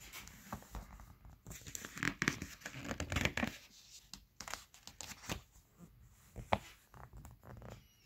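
Glossy catalog pages being turned by hand: irregular paper rustling and crinkling, loudest a couple of seconds in, with a few sharp paper clicks later on.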